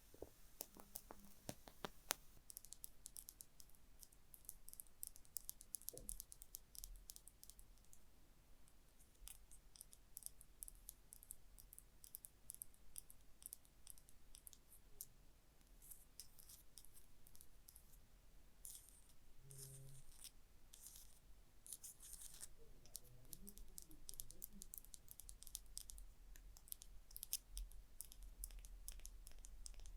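Light, rapid tapping and scratching on a small hard object: many faint, sharp clicks and scratches in quick runs with short pauses between them.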